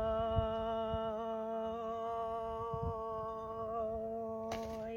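A single sustained humming note held at one steady pitch with strong overtones, cutting off abruptly near the end, with soft low thuds beneath it and a brief scuffing noise just before the cutoff.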